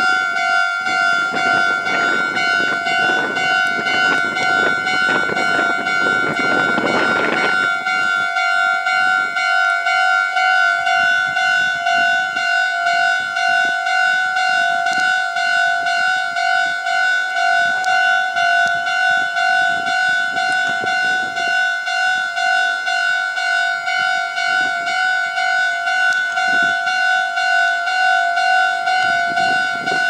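Japanese railway level-crossing alarm ringing, its electronic bell tone repeating steadily the whole time. A Meitetsu train rumbles past under it for the first seven seconds or so, then stops suddenly, leaving the alarm alone.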